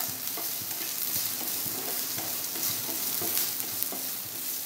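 Chopped onion sizzling in hot oil in a frying pan as it is sautéed, with a utensil scraping and knocking against the pan at irregular intervals while it is stirred.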